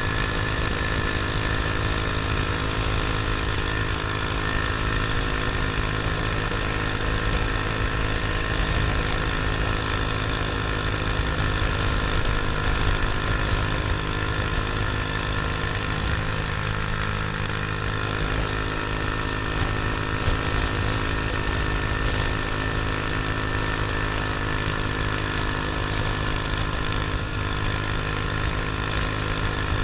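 Small motor scooter engine running while riding, holding a steady speed with an even engine note.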